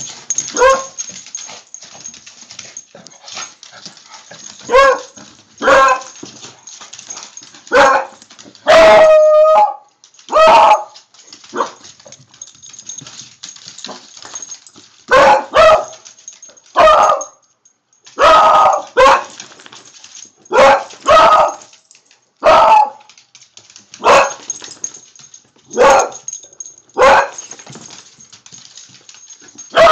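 Beagles barking repeatedly and loudly at a Cabbage Patch doll on the floor: about twenty sharp barks a second or two apart, with one longer drawn-out bay about nine seconds in.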